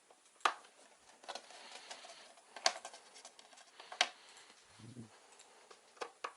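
Sharp clicks and taps of hands handling computer parts and tools, three loud ones about half a second, two and a half seconds and four seconds in, with a few softer ones between and a brief low hum near the end.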